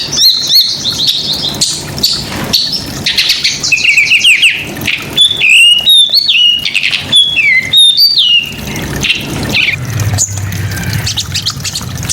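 A small songbird singing a loud, fast, varied song of rapid chirps and trills with sharp down-slurred whistles. The song is a little softer in the last few seconds.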